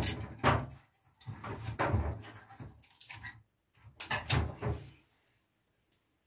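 Firewood and metal stove parts clattering and scraping at the firebox of a brick masonry stove. The knocks and scrapes come in three bouts and stop about five seconds in.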